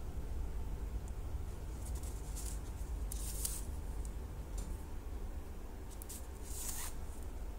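Soft brief swishes of yarn being drawn through crocheted stitches with a yarn needle while a bag panel is sewn to its base, three of them, over a steady low hum.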